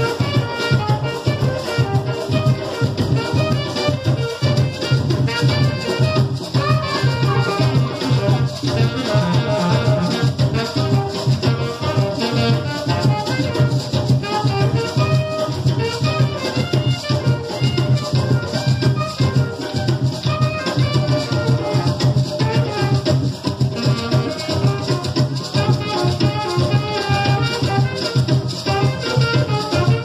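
Live carimbó band playing a steady dance rhythm: curimbó hollow-log drums and maracas under a saxophone line.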